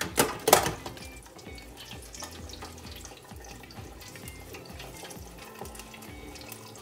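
Stainless-steel deep fryer lid closed with two sharp clanks, then hot oil sizzling and crackling with many small pops as a pork leg deep-fries under the lid.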